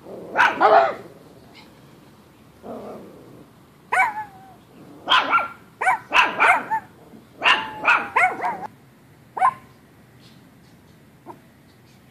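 Small Chihuahua–Pomeranian mix dog barking: a dozen or so short high-pitched barks, mostly in quick clusters of two to four with pauses between.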